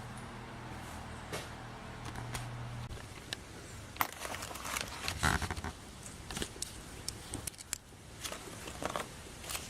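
A low steady hum that stops about three seconds in, then scattered sharp metal clinks and knocks as a strut tower brace is laid onto the strut towers and its bolts are fitted.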